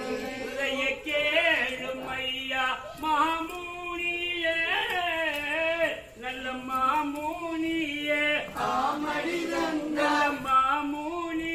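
A group of men's and women's voices singing a Valli Kummi folk song in unison, the melody moving in short repeated phrases, with the dancers' hand claps in time with it.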